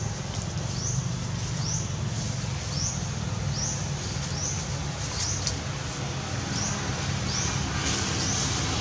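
A short, high, rising chirp repeated evenly a little under once a second, over a steady low rumble.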